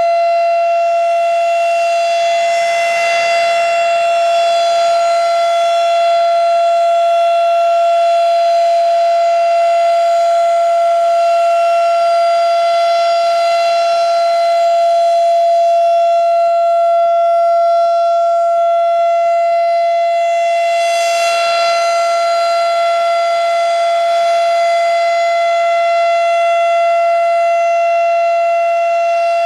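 Federal Signal RSH-10A Thunderbeam outdoor warning siren sounding a steady single-pitched alert tone during a full-alert test. It swells louder and brighter about three seconds in and again about twenty-one seconds in, as the rotating horn sweeps past.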